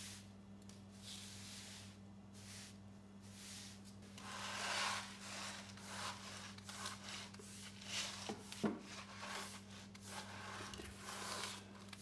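Stiff-bristled hand brush sweeping clumps of dirt across a concrete floor into a plastic dustpan: a run of scratchy brush strokes from about four seconds in, with one sharp tap about halfway through. A steady low electrical hum runs underneath.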